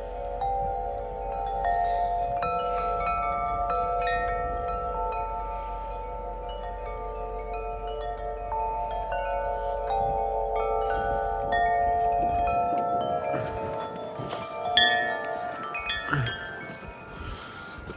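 Several large tuned tubular wind chimes, a Music of the Spheres chime among them, struck by the wind, ringing long overlapping notes that don't quite harmonize. Wind rumbles on the microphone until about two-thirds of the way through, and a few thumps come near the end.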